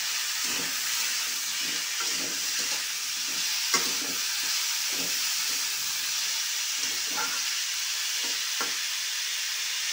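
Chopped turnip sizzling in hot oil in a metal kadai while a flat metal spatula stirs it, scraping against the pan every second or so, with one sharper clink about four seconds in.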